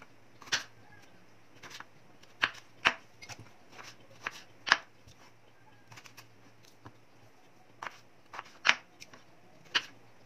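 Kitchen knife cutting raw potatoes into large wedges on a wooden chopping board: irregular sharp knocks, roughly one a second, as the blade goes through onto the board.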